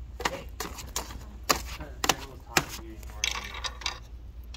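Paper being loaded into an office copier's document feeder: a string of sharp clicks and taps of paper and plastic parts, with a short rustle of sheets sliding about three seconds in.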